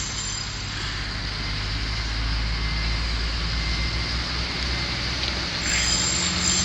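Heavy machinery's engine running steadily on a demolition site, a low even hum with a hiss over it.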